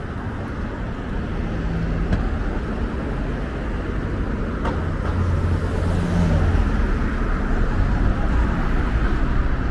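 City road traffic: cars driving past a junction, with tyre noise and engine rumble, the low rumble growing louder about halfway through.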